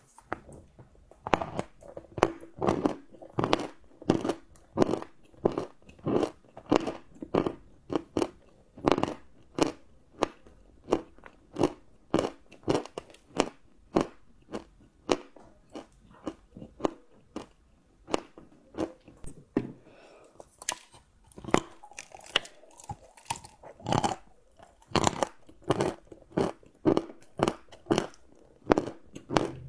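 Close-up chewing of crunchy chocolate: a steady run of crisp crunches, about two a second, with a looser patch of quieter chewing partway through.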